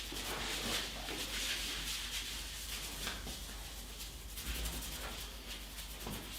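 Hands rubbing and massaging skin and hair close to the microphone: a steady scratchy hiss of friction broken by many small crackles.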